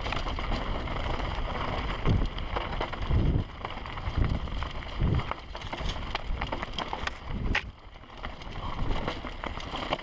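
Mountain bike descending a loose, stony singletrack, heard from a camera on the bike or rider: steady wind and trail rumble with many short rattles and clicks. There are heavy thumps from bumps and drops about 2, 3, 4 and 5 seconds in.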